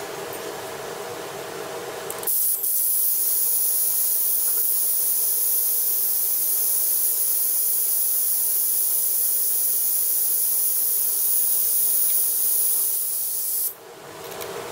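Compressed-air vacuum brake bleeder hissing steadily as it draws old brake fluid out through the caliper's bleeder nipple. The hiss grows louder and brighter about two seconds in and falls back to a softer hiss near the end.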